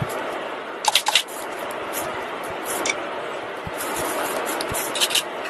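Steady rushing of fast-flowing river water, with a few short sharp clicks about a second in and again near the end.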